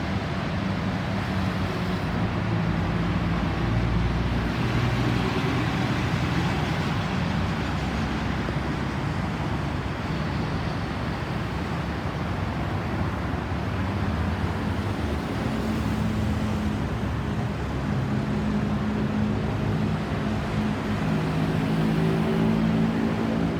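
Steady road traffic noise: vehicle engines running at low speed with tyre and road noise. A low engine hum grows stronger in the last few seconds.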